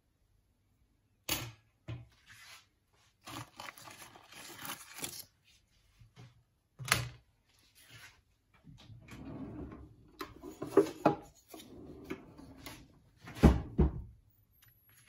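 Kitchen handling sounds: a wire roasting rack knocking and clinking on a glass-ceramic hob and a dry papad rustling as it is laid on the rack. Several sharp knocks, the loudest near the end, are separated by stretches of rustling.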